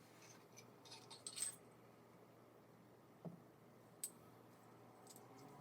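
Near silence broken by a few faint clicks and light metal clinks, a small cluster about a second in and single knocks later, as the small metal attachments of a hiking-pole multi-tool are handled.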